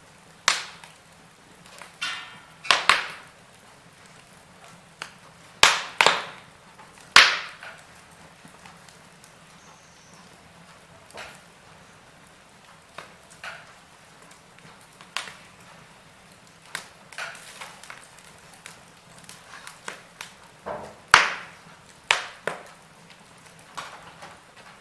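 Wood fire crackling in a fireplace: sharp, irregular pops and snaps, some loud and some faint, spaced from under a second to several seconds apart.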